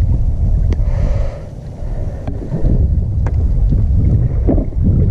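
Wind buffeting the microphone in a steady low rumble, with a few sharp clicks and a brief soft hiss about a second in.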